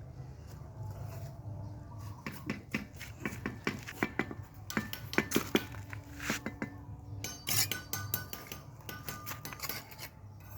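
Hard objects clinking and knocking together in quick, irregular taps, some ringing briefly, starting about two seconds in.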